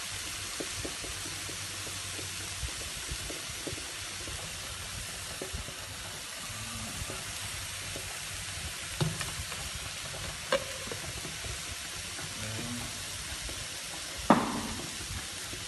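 Slices of pork sizzling steadily on a tabletop electric grill pan, with a few sharp clinks, the loudest near the end.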